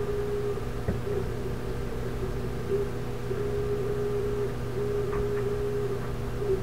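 Hyrel 3D printer running a print: a steady-pitched motor whine that starts and stops in stretches of a second or so as the print head moves, over a constant low hum.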